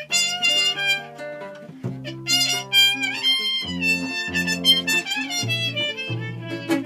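Instrumental passage on trumpet, acoustic guitar and plucked double bass: a trumpet melody over guitar chords, with separate low bass notes coming in about two seconds in.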